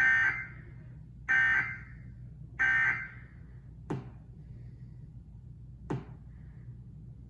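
Emergency Alert System end-of-message data bursts from a TV: three short, harsh digital buzzes about a second apart, signalling the end of the alert. Two sharp clicks follow, about two seconds apart.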